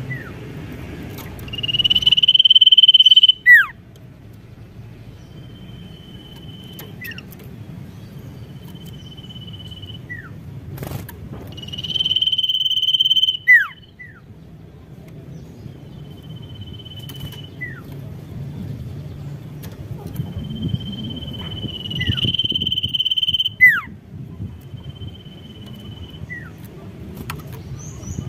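Pied triller singing: a steady, high trill held for about a second, then a quick downward-swooping note, repeated over and over. Three phrases stand out loud, at the start, in the middle and near the end, with fainter ones between, over a low background hum.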